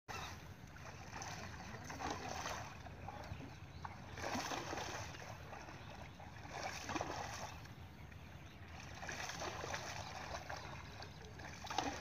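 A long wooden pole beaten and swept through shallow pond water, throwing up splashes in surges about every two to three seconds.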